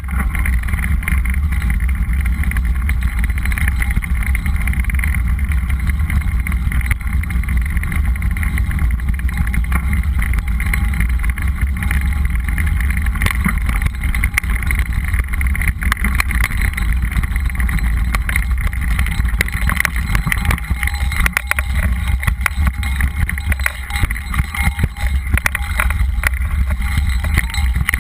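A mountain bike rolling over a dirt and gravel trail, heard from a camera mounted on the bike: a steady low rumble of wind and tyres, with frequent small clicks and rattles as the bike goes over rough ground.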